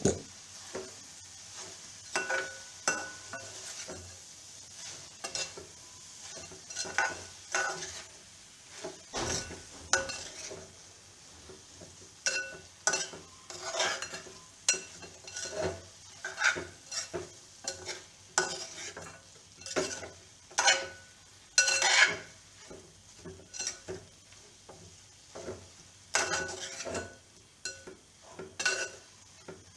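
Metal spoon stirring a thick mix of cooked vegetables and grated coconut in a metal pot, scraping and knocking against the pot's sides in irregular strokes. The loudest knocks come a little past the middle.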